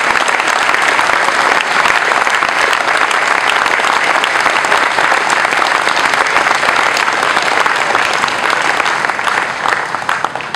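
Audience applause: many people clapping loudly and steadily, tailing off near the end.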